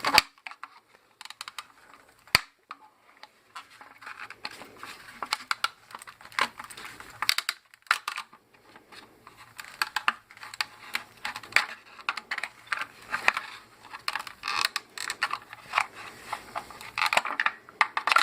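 Hand tools clicking and scraping against a plastic pump housing while small fasteners are pried off, in an irregular string of sharp clicks and short scrapes, with one crisp click a couple of seconds in.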